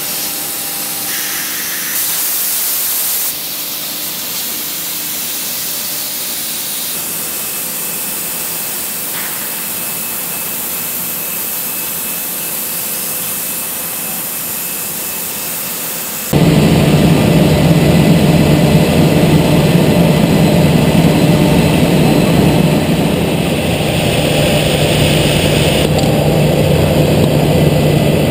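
Homag BAZ 32/50K Optimat CNC machining centre running: a steady airy hiss. About sixteen seconds in it jumps suddenly to a much louder running noise with a steady low hum.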